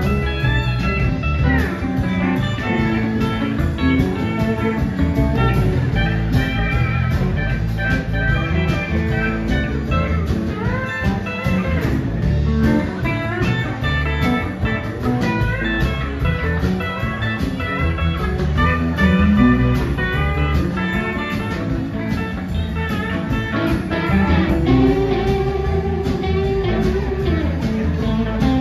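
Live blues-rock band playing an instrumental passage with no vocals: electric guitars and pedal steel over bass and drums, with lead lines that bend and slide in pitch over a steady beat.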